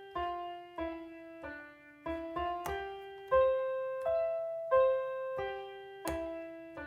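Digital piano sound playing a slow, simple single-note melody in an even rhythm, a new note about every half second to second, each note fading before the next. It is being played in real time on a touch-sensitive MIDI keyboard while being recorded.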